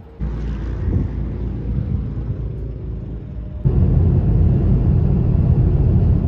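Road noise of a car driving along a highway: a steady low rumble of tyres and engine that gets louder a little over halfway through.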